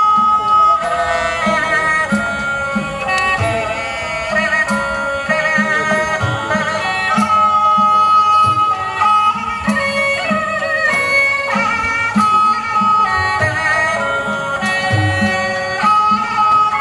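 Thai traditional dance music: a sustained, wavering melody line over regular drum strokes.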